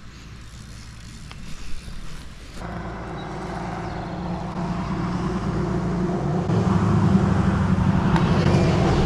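A motor vehicle's engine running, coming in about two and a half seconds in and growing steadily louder.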